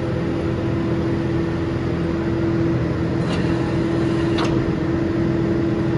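Tractor engine running steadily with a constant hum, powering the hydraulics as the Pöttinger Torro 5100 forage wagon's knives swing back into the chamber. Two sharp clicks, about a second apart, a little past halfway.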